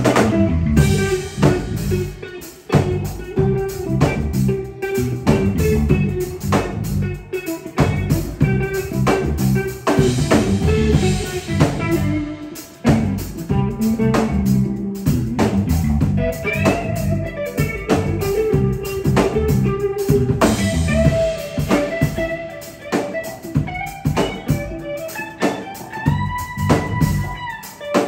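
Live band of electric guitar, bass guitar and drum kit playing a reggae song, with the guitar taking lead lines and holding bent notes over the bass and drums in the second half.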